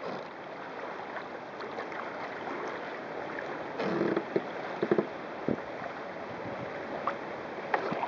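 Steady rush of wind and choppy water along the hull of a sailing kayak running fast in strong wind, with a louder wave slap about four seconds in and a few short knocks.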